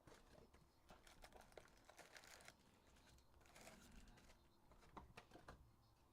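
Faint crinkling and rustling of plastic wrapping with scattered small clicks, as a trading-card box and its packs are handled and opened.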